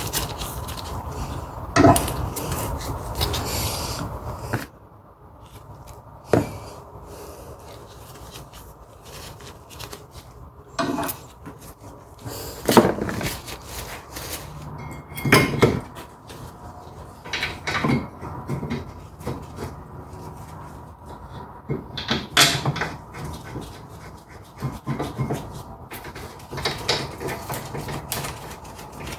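Scraping and scrubbing on metal brake parts for the first few seconds as the caliper bracket is cleaned. Then scattered clanks and clicks of hand tools and brake hardware being picked up and set down.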